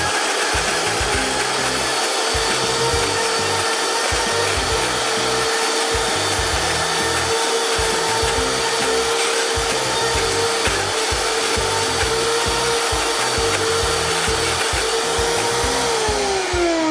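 High-speed blender motor running steadily under load, pureeing a thick sunflower-seed and roasted red pepper pâté while a tamper pushes the mix down onto the blades. Near the end the motor is switched off and its pitch falls as it winds down.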